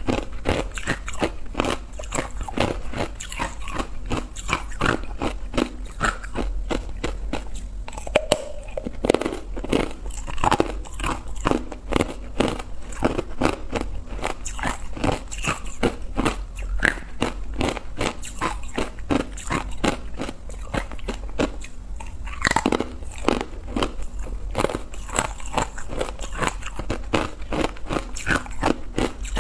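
Close-miked crunching and chewing of hard ice coated in matcha powder: a dense run of sharp cracks, many a second, as the ice breaks between the teeth.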